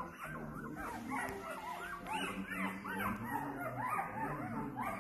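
Newborn Bernese Mountain Dog puppies squeaking and whimpering: many short, high rising-and-falling squeaks, several a second and overlapping from more than one pup.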